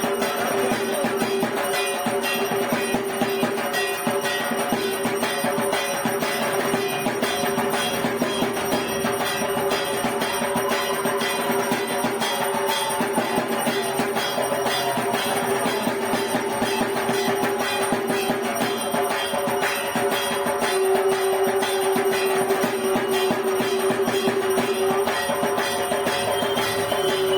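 Music with a steady beat and a melody running through it.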